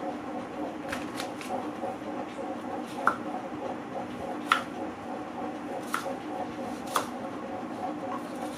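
Food-preparation handling sounds: about half a dozen sharp clicks and knocks over a steady background hum, the loudest about four and a half seconds in.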